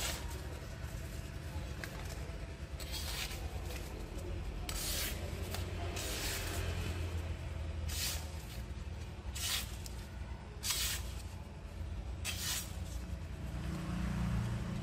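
Electric drill spinning an orange ceramic grinding stone, with a large kitchen knife drawn across it in repeated sharpening passes: a steady motor hum and a scrape of steel on the stone every second or two, about seven times.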